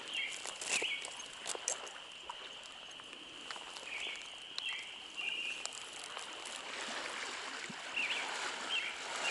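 Trout stream running steadily, with several short high bird chirps and a few small clicks over the top.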